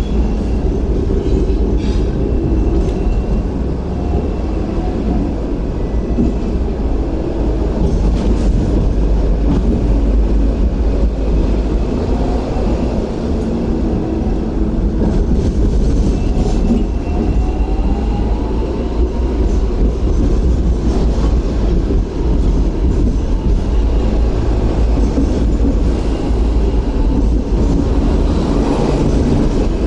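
Hong Kong double-decker electric tram running along street track, heard from inside: a steady rumble of wheels and running gear with clicks over the rail joints. Faint high wheel squeal comes and goes, and a short rising whine is heard about halfway through.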